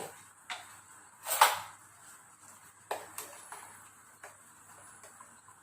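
A few scattered knocks and clinks of bowls and utensils in a kitchen, the loudest a short clatter about a second and a half in.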